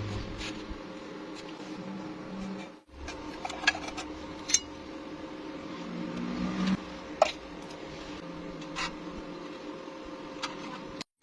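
A steady machine hum with a few sharp clicks scattered through it.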